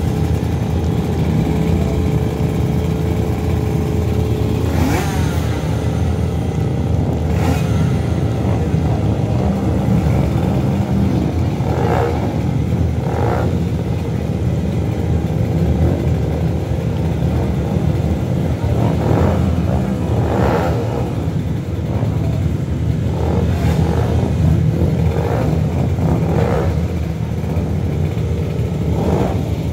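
A line of small race motorcycles, a Honda CBR125 single among them, idling together with a steady low drone, while riders blip their throttles in short revs every few seconds, most often in the second half.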